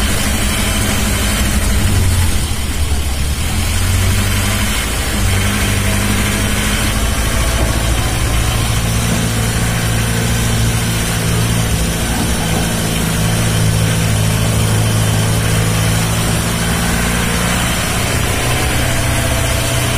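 A vehicle's engine running steadily, a low hum under an even haze of noise.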